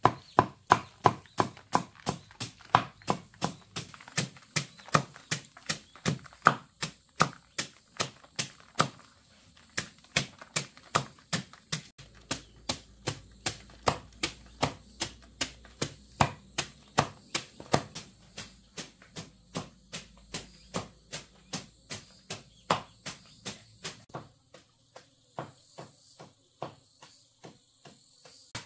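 Steady chopping with a blade: sharp strikes at about two to three a second, with one brief pause.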